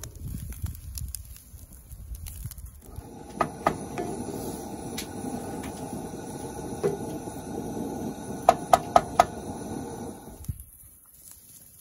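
Baked beans cooking in a cast iron skillet on a gas camp stove, a steady hiss that cuts off suddenly near the end. A wooden spatula stirs and knocks against the pan a few times, with a quick run of four taps about two-thirds through. Before that, for the first few seconds, there is only a low rumble.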